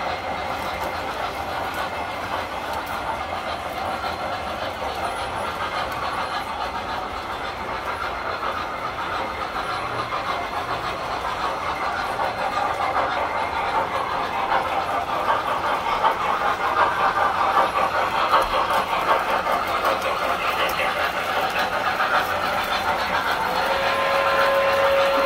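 Tinplate toy train running on its track: a steady metallic rattle of wheels on rail with motor hum, growing louder over the second half as the cars pass close. A single steady tone sounds for the last couple of seconds.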